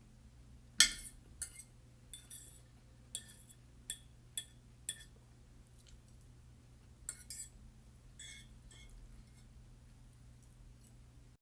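Cutlery clinking and tapping against a plate in about a dozen irregular, sharp clinks, the loudest about a second in, while eggs and hash browns are eaten.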